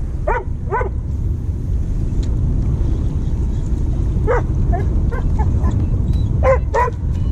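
A dog whining and yipping in short high cries: two near the start, one in the middle and two close together near the end. A steady low rumble of wind on the microphone runs underneath.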